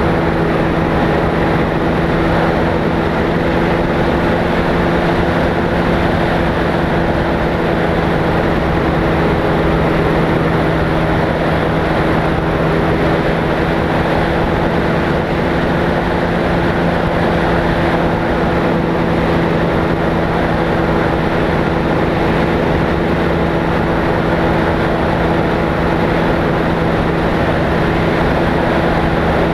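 Flex-wing microlight trike's engine and pusher propeller running steadily in level flight, holding one even pitch with no change in power.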